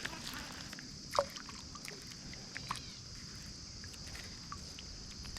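Crickets trilling steadily outdoors, with a couple of short, sharp sounds, the loudest about a second in and another near three seconds.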